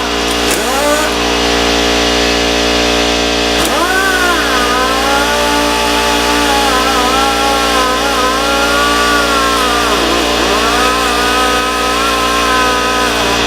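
A motor running with its speed rising and falling over several seconds, over a steady hum.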